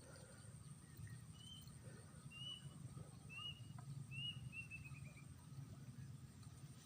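Faint bird calls: four short chirps about a second apart, then a quick run of notes stepping down in pitch about four to five seconds in, over a low background rumble.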